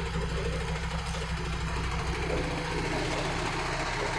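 Diesel engine of a MAN truck tractor running at low revs, a steady low hum.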